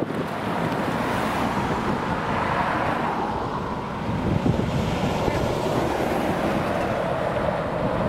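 Road traffic driving past close by: cars and lorries going by one after another, with wind on the microphone.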